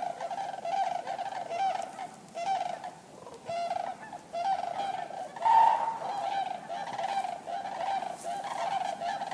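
Common cranes calling: short trumpeting calls in quick succession, several a second. They ease off briefly about three seconds in, and the loudest call comes about five and a half seconds in.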